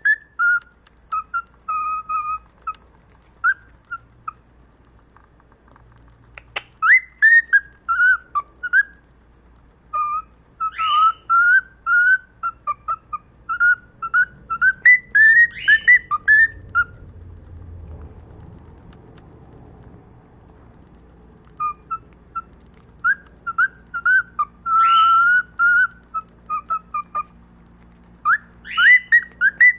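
Cockatiel whistling a song: runs of short, quick whistled notes with upward swoops, in phrases of a few seconds separated by pauses, with the longest pause a little past the middle.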